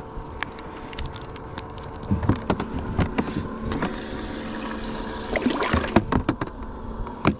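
Knocks and clatter of a boat's livewell lid and a plastic board being handled, with water splashing, over a steady motor hum.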